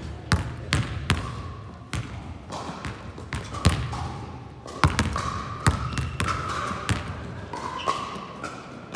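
Basketballs bouncing on a sports-hall floor: about ten irregularly spaced hits, each echoing in the large hall.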